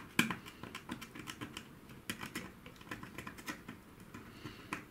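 Faint, irregular light clicks and taps, several a second, of small tools being handled against a laptop's circuit board.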